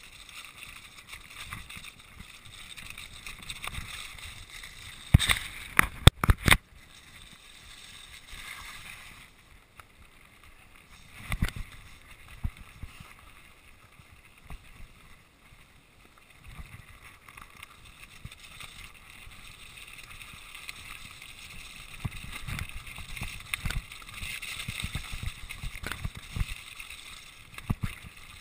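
Mountain bike riding down a rocky, wet trail: tyres crunching over loose stones and the bike rattling, with a cluster of hard knocks about five to six seconds in and another sharp knock about eleven seconds in.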